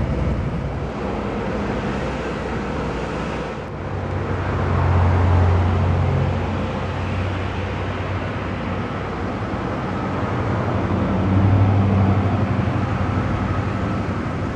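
Low vehicle rumble that swells twice, about four and eleven seconds in, each swell rising and fading over a couple of seconds.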